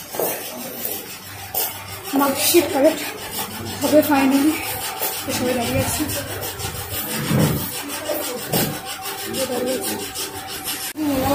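Handling noise: a handheld phone's microphone rubbing and scraping, with indistinct voices of a crowd of people close by.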